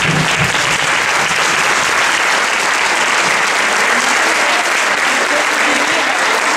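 Audience applauding steadily, a dense, even clatter of many hands clapping.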